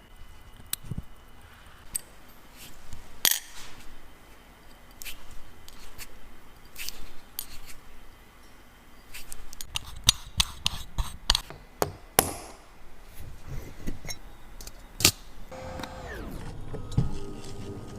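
Small metal watchmaker's tools and watch parts clicking and clinking on a hard surface during a Rolex service, with a quick run of sharp clicks about ten seconds in. Near the end a humming sound starts, with a tone that falls in pitch and then holds steady.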